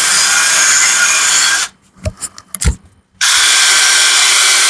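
Electric drill running, scouring built-up crud off a clamped lawnmower blade. It stops about a second and a half in, followed by a few knocks and clicks, then starts up and runs again about three seconds in.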